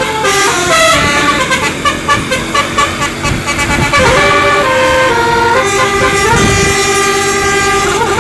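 Indonesian tour bus 'basuri' telolet horn, a multi-tone musical horn, playing a tune of short stepped notes, with one note held for about two seconds near the end.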